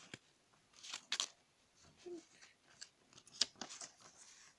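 A sheet of paper being handled and folded by hand: crisp crinkles and rustles, loudest about a second in and again a little past three seconds.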